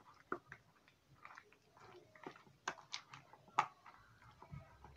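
Faint, irregular wet smacks and clicks of a hand rubbing thick spice paste into fish fillets in a bowl, about seven in all.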